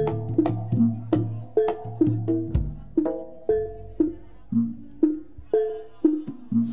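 Jaranan gamelan music: struck pitched gamelan percussion rings out in a quick, even rhythmic pattern over drum strokes, with a deep low stroke about two and a half seconds in.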